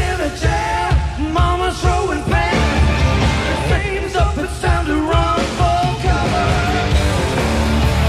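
Live hard rock band: a male lead vocal sung over electric guitar, bass and drums. The singing stops a little before the end, where the band plays on alone.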